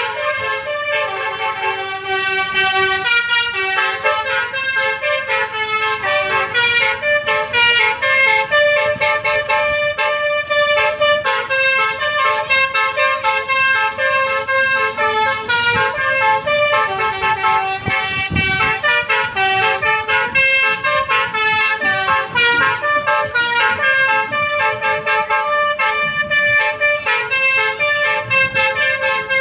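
Basuri telolet horn on an Isuzu Elf minibus playing a tune: several horn trumpets sounding together as a chord, switching notes every fraction of a second in a steady melody.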